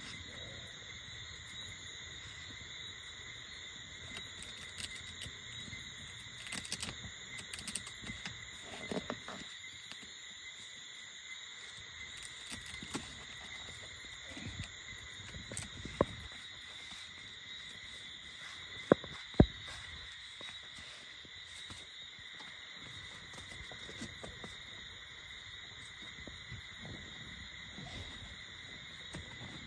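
Steady high-pitched insect chorus, with rustling and light knocks as tent fabric and frame poles are handled. A sharp click about halfway through and two more in quick succession a few seconds later are the loudest sounds.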